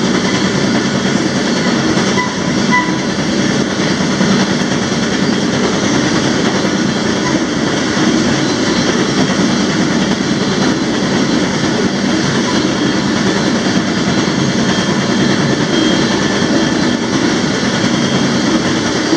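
A moving freight train heard from on board at the end of a car: the steady, loud running noise of wheels on rail. A few faint, brief squeaks come in the first few seconds.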